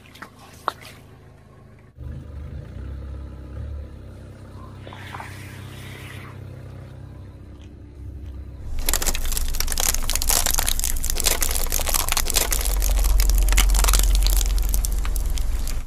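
A car tyre creeping over objects on asphalt: first a steady low rumble from the slowly moving car, then from about nine seconds in, loud, dense crackling and crinkling as the tyre rolls over and flattens a foil packet, with a deep rumble under it.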